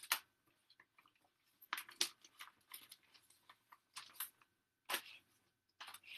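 Handling noise close to the microphone: a handful of short clicks, taps and rustles at irregular intervals, as things are moved about while the recording is set up.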